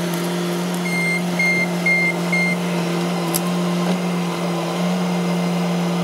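Bobcat skid steer's diesel engine running steadily as the loader works a brush pile. Four short, evenly spaced high beeps sound from about a second in.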